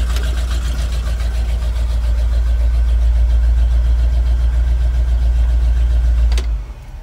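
1974 Chevrolet C65 straight truck's engine idling with a steady low rumble; about six seconds in there is a sharp click and the engine sound drops away.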